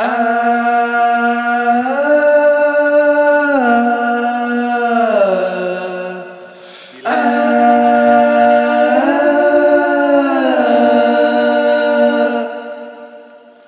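Background music of long held chords in two phrases, each starting abruptly and fading out, the notes sliding slowly from one chord to the next.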